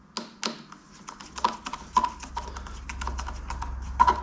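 Irregular metallic clicks and taps of a screwdriver working the pivot of a new front brake lever on a Honda CB650R, some with a short metallic ring. A low steady hum comes up after about a second.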